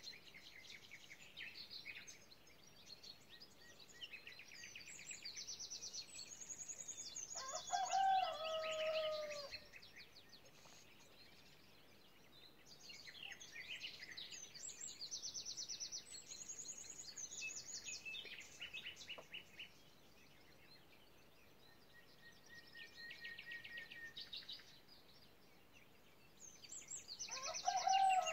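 Songbirds singing in bouts of rapid, high trills and twitters, the cage-bird song of canaries and goldfinches. Twice, about eight seconds in and again near the end, a deeper call of about two seconds falls in pitch; it is the loudest sound.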